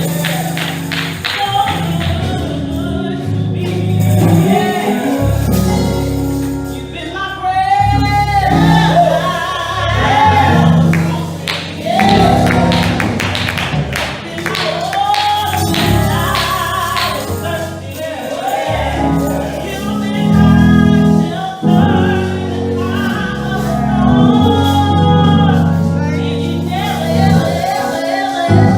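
Live gospel praise and worship music: a group of voices singing together over a band, with a steady drum beat.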